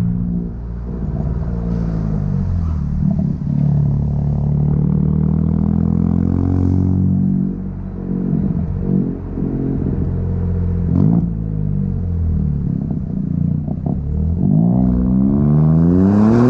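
Chevrolet Onix RS 1.0 turbo three-cylinder engine heard through an aftermarket sport exhaust, its note rising and falling with the throttle. Several quick revs come in the middle, with one sharp click, and the pitch climbs steeply near the end.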